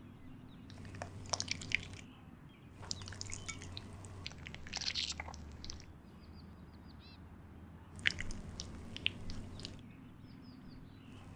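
Wet squelching sound effect of snail slime: three bursts of crackly, sticky squishes, starting and stopping abruptly, the middle one longest.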